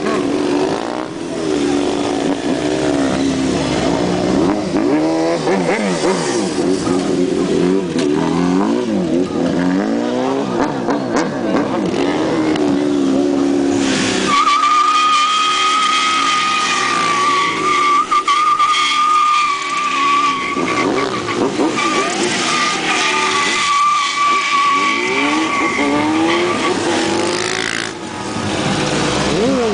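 Sport bike's inline-four engine revving up and down in quick, uneven bursts while the bike spins in tight circles. About halfway through, a steady high-pitched tyre squeal starts suddenly as the rear tyre slides through donuts, and it holds for a long stretch over the revving before dying away near the end.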